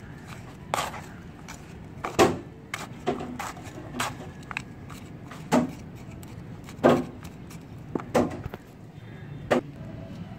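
Metal hand trowel stirring and scraping dry, crumbly potting mix of soil, cocopeat and cow dung in a plastic tub. Irregular scrapes and knocks come roughly once a second.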